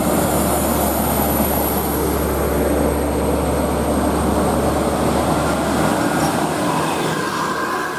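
Coach bus running, a steady loud rumble of engine and road noise; the deepest part of the rumble fades about six seconds in.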